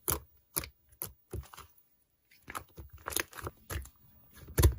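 Scattered soft clicks and taps at an irregular pace, with short quiet gaps between.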